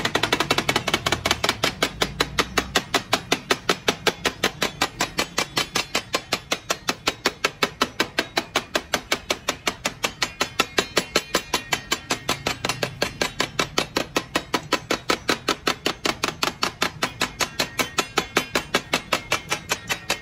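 Knife chopping fast and steadily on a cutting board, several even strokes a second, without a break.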